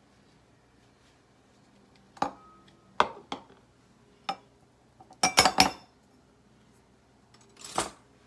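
A spatula knocked and tapped against an enamel cup, trying to shake off a thick, sticky dollop that won't drop. Sharp clinks come singly about two and three seconds in, in a quick cluster around five and a half seconds, and once more near the end.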